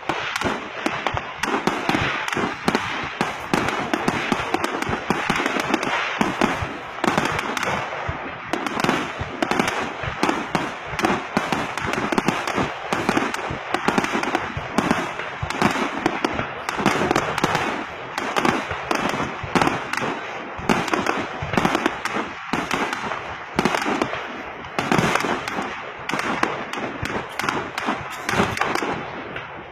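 Fireworks display going off: a rapid, continuous run of sharp bangs and crackling, several reports a second, with no pause.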